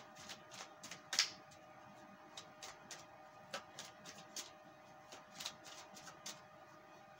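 A deck of tarot cards shuffled by hand: a quiet, irregular run of soft card flicks and clicks, a few a second.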